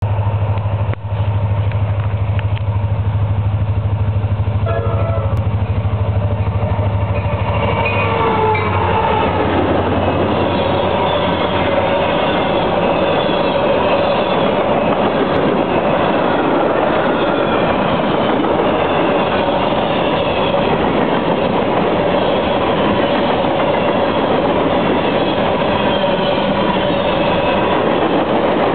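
CSX grain train passing close by. First the diesel locomotives approach with a low, steady engine rumble that drops away about nine seconds in. Then a long string of covered hopper cars rolls past, wheels clattering over the rails, with a steady tone running under the wheel noise.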